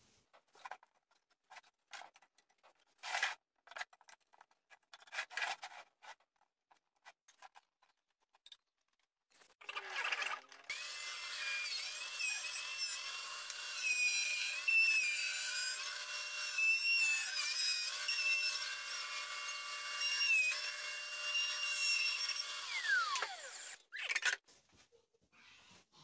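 Scattered light knocks and clicks of wooden parts being handled, then an electric power tool starts about ten seconds in. It runs with a high, slightly wavering whine for about thirteen seconds, then winds down with a falling pitch as it stops.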